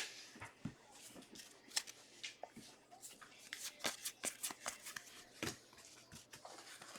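Trading cards being handled and flipped through: faint, irregular little clicks and rustles of card stock.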